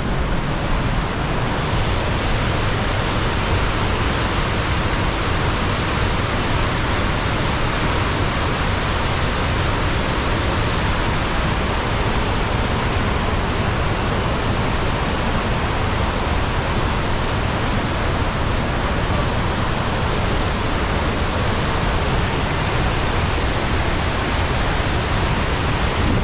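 Rhine Falls waterfall: the loud, steady rush of a large volume of falling water.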